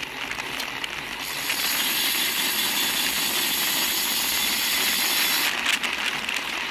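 Road bike's freehub ticking as the rider coasts, mixed with wind and tyre rush on the bike-mounted camera, which grows louder about a second and a half in.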